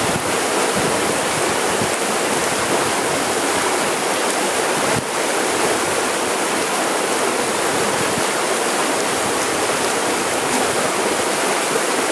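Steady rush of a fast river current, the water churning and swirling at the surface.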